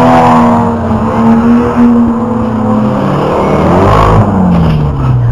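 Several rear-wheel-drive banger racing cars' engines revving hard together. About three seconds in, one engine's note drops in pitch as a car passes close by while another climbs.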